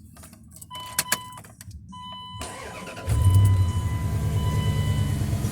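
A 1999 Dodge Ram 1500 starting: a couple of clicks and a steady electronic warning tone, then the engine cranks and catches about three seconds in and runs at a smooth, steady idle. No belt squeal is heard from the new serpentine belt.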